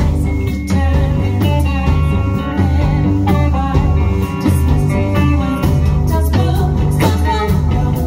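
Live rock band playing at full volume, with electric guitar to the fore over bass and drums.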